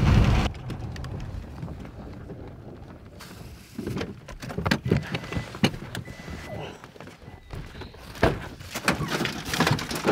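Low road rumble inside a pickup's cab cuts off half a second in. Scattered knocks and thuds follow, getting busier with clatter and rustling near the end, as a man works at the back of a pickup truck.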